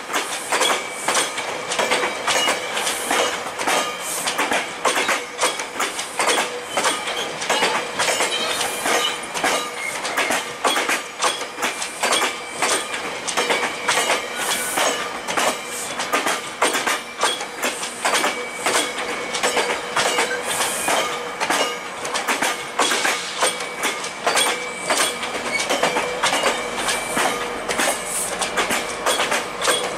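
GO Transit bilevel passenger coaches rolling past close by, their steel wheels clicking rapidly and unevenly over rail joints, with a thin steady wheel squeal underneath.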